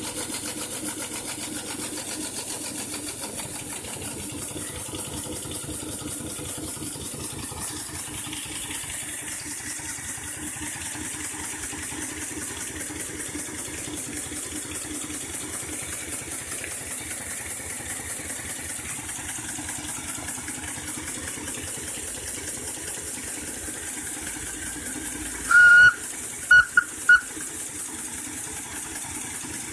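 Miniature live-steam locomotive in steam: a steady hiss with a regular beat of about three pulses a second. Near the end its steam whistle sounds, one short blast followed by two quick toots, the loudest thing heard.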